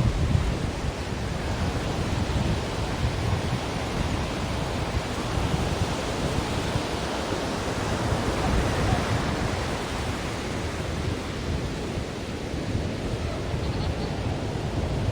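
Ocean surf: a continuous rush of waves breaking and washing, steady in level throughout.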